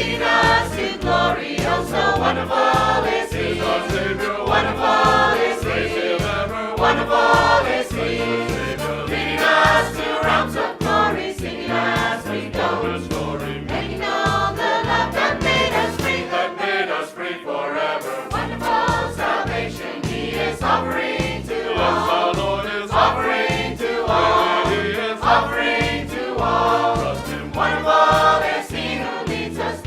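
Choir singing a gospel hymn over instrumental accompaniment with a steady, rhythmic bass line.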